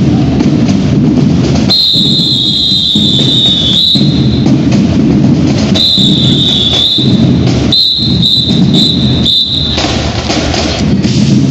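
A marching band's drumline plays a loud cadence while a whistle is blown over it, first in two long blasts and then in a quick run of short blasts.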